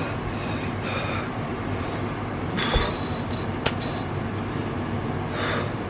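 Steady background rumble with a low hum, broken by two short clicks about three and three and a half seconds in.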